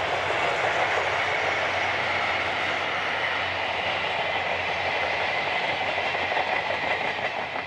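A steam-hauled passenger train, the C57 180 and its coaches, passing close by: a loud, steady rolling rush of wheels on rail.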